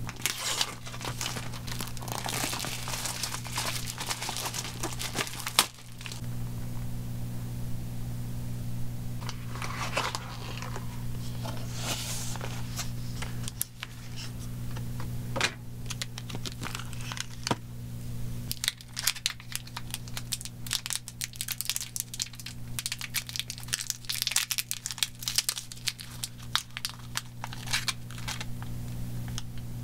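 Plastic packaging of a washing machine cleaner crinkling and tearing as it is handled and opened, in irregular rustles and crackles over a steady low hum.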